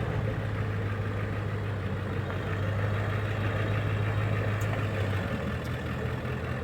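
Ford Econoline van's engine running steadily at low speed on a rocky trail climb, a low even hum that eases slightly about five seconds in.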